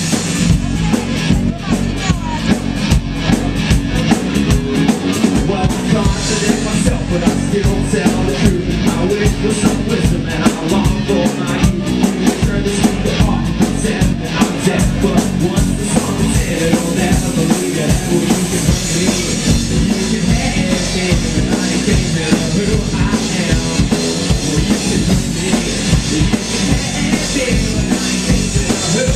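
Rock band playing live, the drum kit driving a fast, steady beat under the bass and other instruments.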